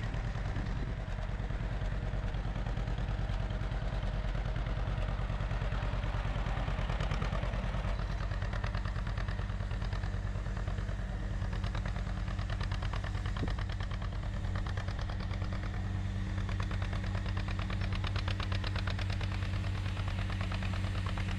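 John Deere B tractor's two-cylinder engine running steadily while pulling a 44H plow through hard ground, with a rapid even pulse of firing. Its tone changes a little about eight seconds in.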